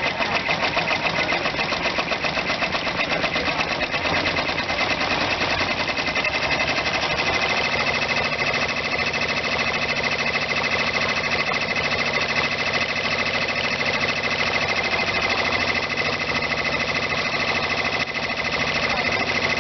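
Endurance II multi-needle embroidery machine stitching at speed: a rapid, steady chatter of needle strokes with a steady high whine.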